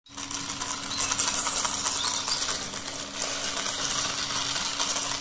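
Plastic toy scooter being pushed along by hand, its wheels and gear mechanism whirring with a fast, continuous rattling clatter.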